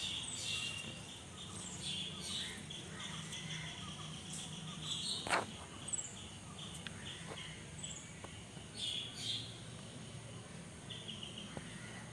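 Outdoor ambience of birds chirping and insects, over a low steady hum. A single sharp click comes about five seconds in.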